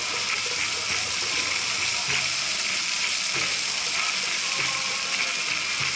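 Steady hiss and splashing of a fountain's rows of small water jets, with the chatter of a large crowd behind.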